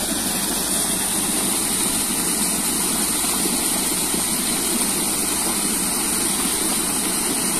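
Water gushing steadily from a pipe outlet and splashing down into a small stone-lined pool, a constant rush.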